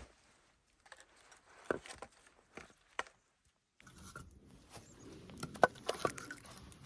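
Footsteps crunching in snow: scattered soft crunches, a short silent break in the middle, then steadier crunching.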